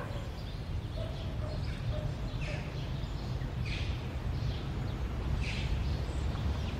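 Footsteps of two children walking over outdoor ground, a soft scuff about every second, over a steady low rumble.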